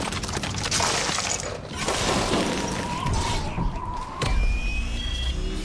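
Ice cracking and shattering off the frozen Iron Man Mark II armor as it plummets through rushing air, a film sound effect. About four seconds in comes a sudden crack and a deep rumble, and music notes come in near the end.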